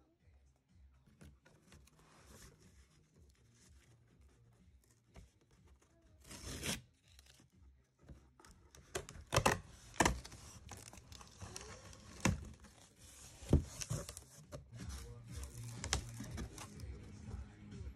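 Packing tape being pulled and torn off a cardboard box: a single rasp about six seconds in, then a run of sharp rips and scrapes through the second half.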